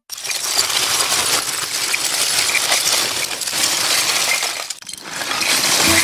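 Sparkling shimmer sound effect for a TV bumper animation: a dense hiss of tiny metallic clinks like a shower of coins. It dips briefly near five seconds in, then swells again.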